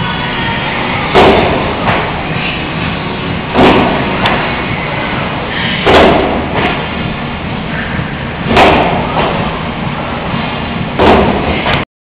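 Plate-loaded leg press machine thudding with each rep as the weight-loaded sled is pressed and lowered: five heavy thuds about two and a half seconds apart over steady background noise.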